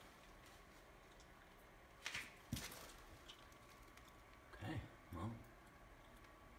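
Mostly near silence: room tone. About two seconds in there is a brief rustle, then a single knock, and near five seconds two short murmured voice sounds.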